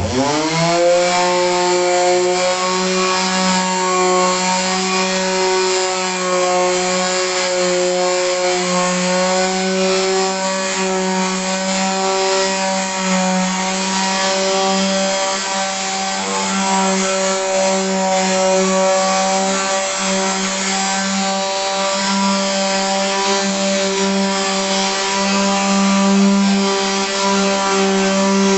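Electric power sander starting up, its motor whine rising quickly to speed, then running steadily with a hiss of abrasive on wood while sanding off old varnish.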